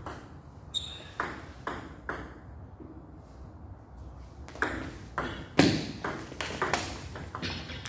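Table tennis ball clicking off bats and table: a few hits in the first two seconds, a pause, then a quick rally of hits and bounces about two or three a second.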